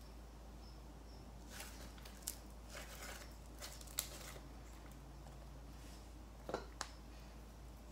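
Slime being squeezed and pulled by hand: faint sticky squishing with a few sharp pops and clicks, the sharpest about four seconds in and two close together near the end.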